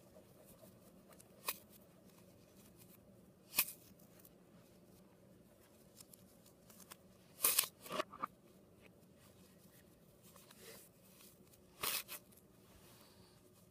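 Paper being handled and crinkled by hand: a few short rustles with quiet in between, the loudest cluster about halfway through.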